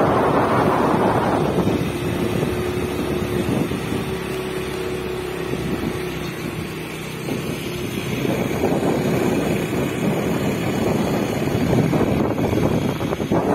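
Wind buffeting the microphone of a moving motor scooter, with the scooter's engine running underneath; the rush swells near the start and again in the last few seconds.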